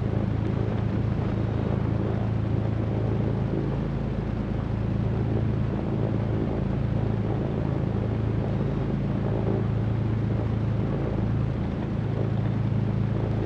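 Cessna 310Q's twin piston engines running steadily, heard as an even low drone inside the cockpit.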